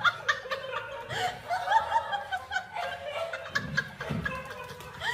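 A person laughing in quick, high-pitched giggles, with a few dull thumps about three and a half to four and a half seconds in.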